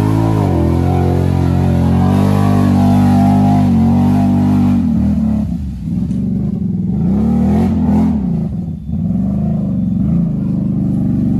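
Can-Am ATV's V-twin engine revving hard under load in mud, held at high revs at first, then dropping and surging back up several times before steadying again.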